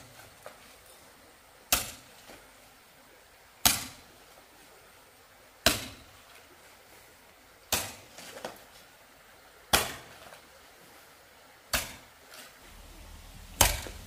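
Sharp blows struck at a steady pace, about one every two seconds and seven in all, some followed by a lighter knock, as in repetitive manual work such as chopping or hammering.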